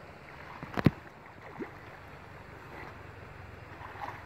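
Steady hiss of river water, with some wind on the microphone, broken by one sharp knock or slap about a second in and a fainter one shortly after.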